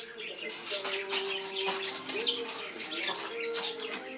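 Cockatoos moving about in their cages: paper rustling and scratching under their feet, with a few held tones about a second long.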